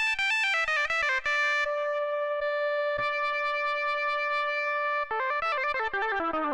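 Nord Wave 2 synthesizer playing a plucky patch: a fast run of short notes, then one note held for about three seconds, then a quick falling run of notes.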